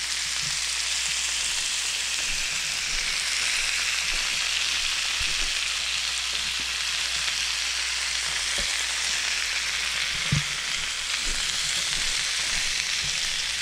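Oil-marinated New York strip steaks sizzling steadily on the hot ribbed plate of an open George Foreman electric grill, with a small pop about ten seconds in.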